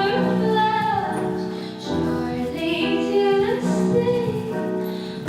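Music: a song with a woman singing long, gliding notes over an instrumental backing.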